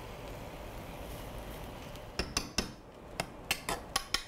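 Metal spoon clinking against a small copper saucepan while stirring soy sauce with bonito flakes: a quick run of sharp clinks starts about halfway through, after a faint steady hiss.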